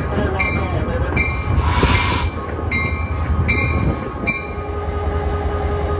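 Diesel locomotive's engine rumbling steadily as it rolls, with a grade-crossing bell dinging in an even rhythm that stops a little past four seconds in as the locomotive clears the crossing. A brief hiss sounds about two seconds in.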